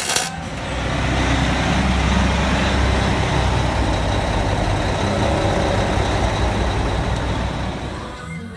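A brief arc-welding crackle at the very start, then a heavy diesel truck engine running steadily with a broad hiss over it. The sound eases off near the end.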